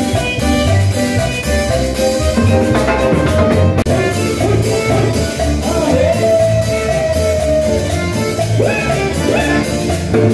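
Live Latin dance band playing: timbales and cymbals keeping a steady beat under keyboard and guitar, with one long held note about six seconds in.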